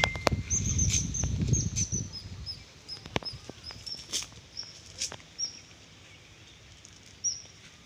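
A bird repeating short, high chirps, about two a second, for some five seconds. A low rumble fills the first two seconds, and a few sharp clicks come in the middle.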